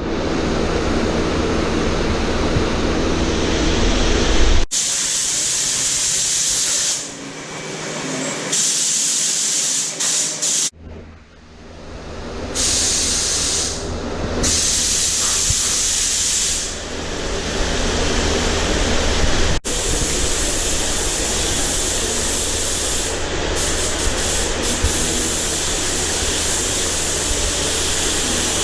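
A loud spraying hiss over a steady low machine hum, typical of workshop air or spray equipment in use. It cuts off abruptly and restarts several times, as separate clips are joined together.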